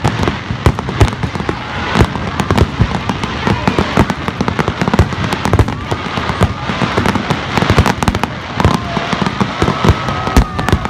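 Fireworks display: aerial shells bursting in a dense, rapid barrage of bangs and crackles, many overlapping.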